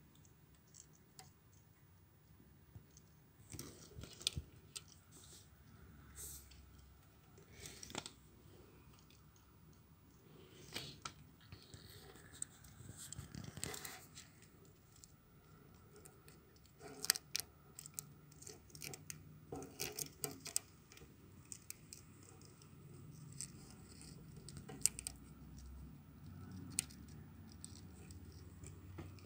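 Scattered light clicks and scrapes close to the microphone, handling noise against a faint low hum.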